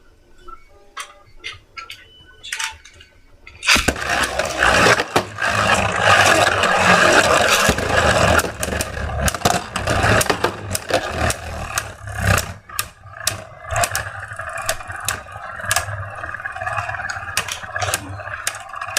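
A few scattered clicks, then about four seconds in two Beyblade Burst tops are launched and spin in a plastic stadium: a dense whirring scrape with many sharp clacks as they collide, easing off somewhat near the end.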